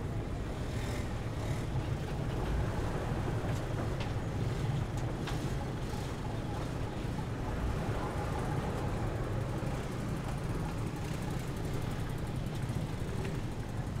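Steady low engine rumble of a river passenger ferry under way, with faint scattered clicks and knocks above it.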